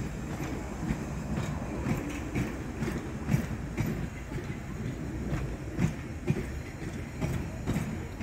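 London Underground Bakerloo line 1972 Stock tube train running past on the rails: a steady low rumble with irregular clicks and knocks from the wheels going over the track.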